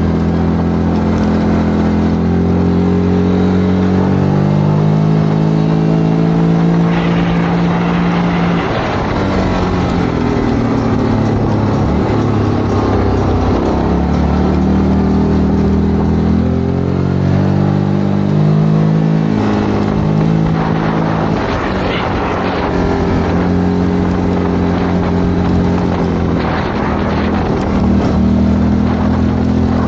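Single-cylinder ATV engine running under way, its pitch stepping and gliding up and down as the throttle opens and closes, over a steady rush of noise.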